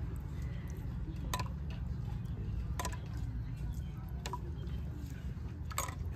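A metal spoon clinking against a jar of chili sauce as it is spooned over a bowl of noodle soup: a few sharp, separate clicks a second or more apart, over a steady low rumble.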